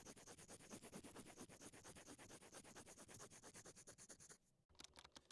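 Fast, even scratching strokes, about a dozen a second, that stop about four and a half seconds in.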